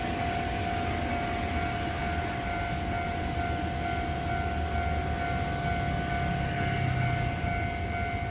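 Diesel-electric freight locomotive working hard as the train pulls away, a steady engine rumble under a continuous high whine.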